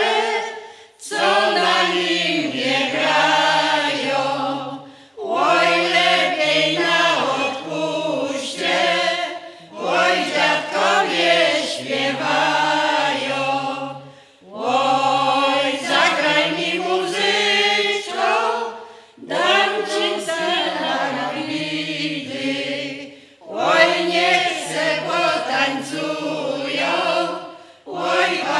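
Polish village folk ensemble of women's and men's voices singing a folk song unaccompanied, in phrases of about four to five seconds separated by short breath pauses.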